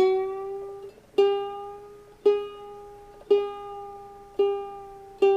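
A ukulele's G string plucked six times, about once a second, each note ringing and fading. On the first pluck the pitch rises slightly as the tuning peg brings the string up to G.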